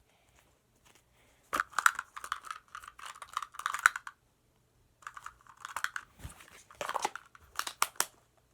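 Slime being squeezed and stretched by hand, making dense crackling and popping in two bouts a couple of seconds long with a short pause between.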